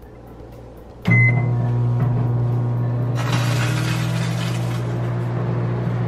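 Microwave oven being started: a click and a short high beep about a second in, then the steady low hum of the oven running, with a hiss joining about three seconds in.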